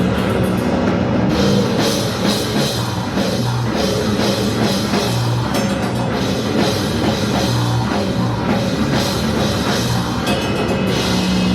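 Live rock band playing loud, dense music with a drum kit, crashing cymbals and sustained low notes.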